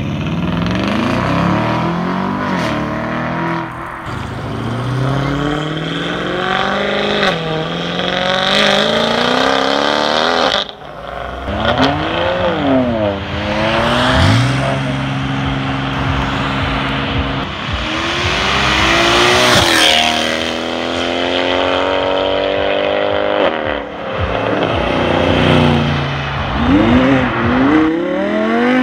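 Performance cars accelerating hard away one after another, each engine revving up through the gears. Near the end there are quick rev blips up and down.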